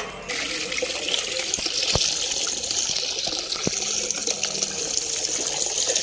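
Well water poured from a metal pail into a plastic water bottle, overflowing and splashing into the basin below; the steady pouring starts just after a sharp click.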